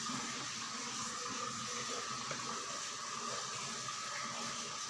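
Steady background hiss with a faint, thin steady tone running under it; no distinct events.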